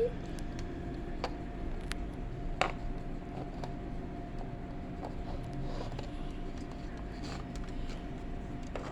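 Steady low room hum with a faint constant tone, and a few light clicks, the loudest about two and a half seconds in.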